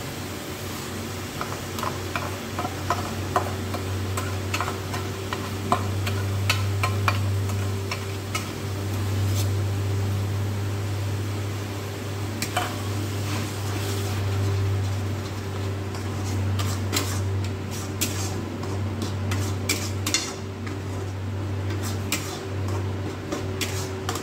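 A metal spatula scraping and clicking against a black iron kadai as a thick ground coconut and poppy-seed paste is stirred and fried. A steady low hum runs underneath.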